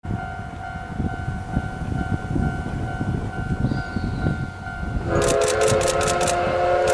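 Steam whistle of the C58 steam locomotive sounding a sustained chord of several notes for departure, starting about five seconds in. Before it, a steady high tone and an uneven low rumble; sharp clicks come in with the whistle.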